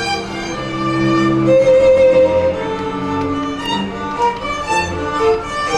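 A school string orchestra playing live, violins carrying a sustained melody over cellos and double basses, with the notes changing about every half second.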